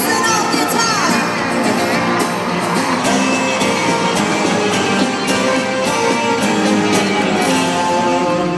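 Live band of electric guitars, drums and keyboards playing a country-rock song through an arena PA, heard from the audience in a large hall. A pitch slide falls about a second in.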